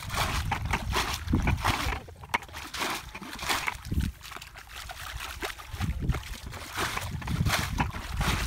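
Muddy water splashing and pouring as a plastic bucket is scooped through a shallow ditch and emptied onto the bank, bailing the ditch out, with feet sloshing through the mud. The splashing comes in irregular bursts and eases for a moment mid-way.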